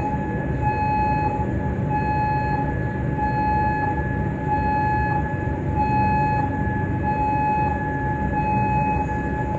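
Civil defense air-raid siren sounding a warning of incoming air attack: a steady high tone with a brief break about once a second, over a low background rumble.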